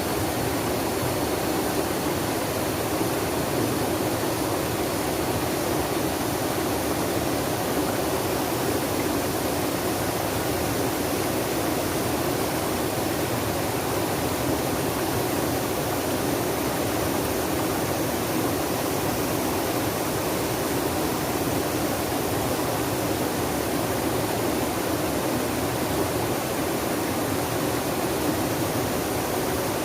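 Flowing water rushing steadily, an even wash of sound that never changes.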